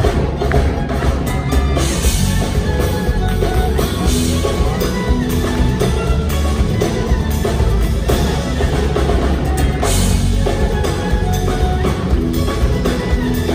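Live band playing Nouveau flamenco-style music loudly: acoustic guitars and violins over a drum kit keeping a steady beat.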